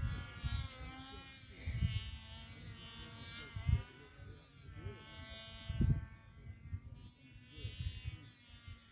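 Small model aircraft engine buzzing in flight, its steady high-pitched note swelling and fading as the model passes, with irregular low rumbles underneath.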